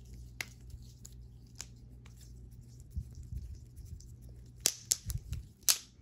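Balisong trainer being flipped through ladders, its handles and pivots clicking and clacking: a few light clicks, then a quick flurry of sharper clacks near the end.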